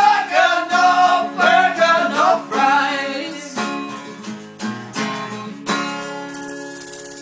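Acoustic guitar strummed with a sung vocal line for the first few seconds, then the voice stops and a few more strummed chords follow, the last one left ringing.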